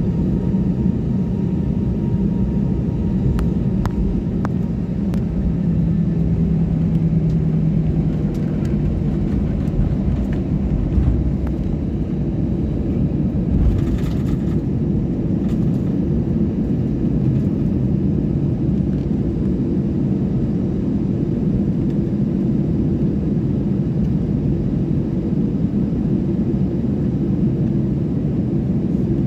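Passenger aeroplane's steady low engine rumble, with a few faint clicks early and a brief hiss about halfway through.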